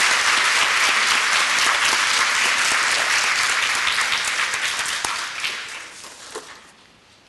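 Audience applauding, a dense steady clapping that dies away over the last two seconds to a few scattered claps.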